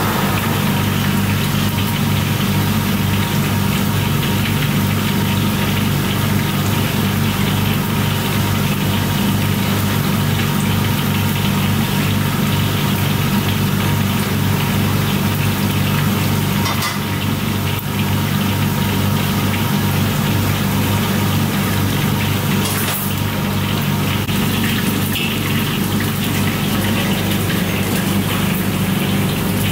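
Chicken deep-frying in a wok of hot oil, sizzling steadily over a loud, steady low machine hum. A couple of brief clicks come through in the second half.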